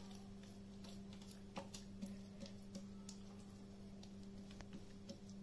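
Near-quiet room with a low steady hum and a few faint, soft ticks as a hand presses and spreads oiled parotta dough thin on a flat countertop.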